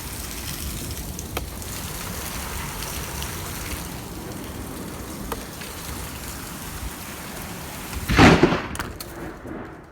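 Heavy rain falling steadily in a severe thunderstorm, with a sudden loud crack of thunder from a close lightning strike about eight seconds in.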